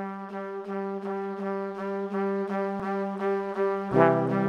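Background music: a single held note pulsing about three times a second, joined by a lower, louder note near the end.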